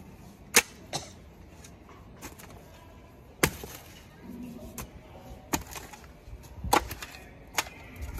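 A fawda (Indian spade-hoe) chopping into dry earth: about six sharp strikes at uneven intervals.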